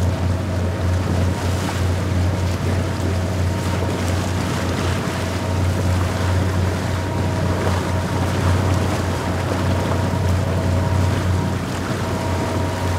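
Speed boat engine running steadily under way, a constant low drone, with water rushing past the hull and wind buffeting the microphone.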